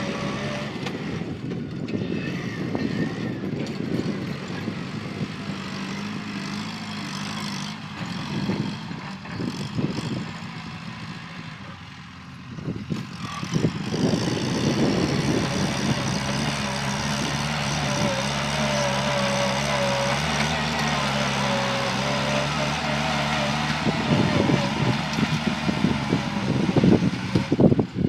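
Kubota farm tractor's diesel engine running steadily under load while pulling a disc plow through dry soil. The engine fades about twelve seconds in, then comes back louder and steady a couple of seconds later.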